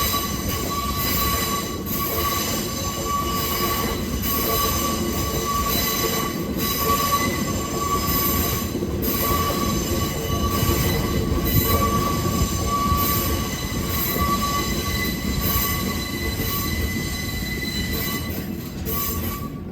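Freight train rolling slowly through a level crossing, its steel wheels giving a steady high squeal over a continuous low rumble.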